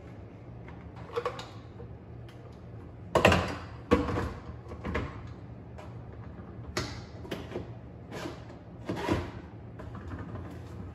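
A dishwasher being cleaned by hand: a string of separate scrapes and sliding knocks, the loudest about three seconds in.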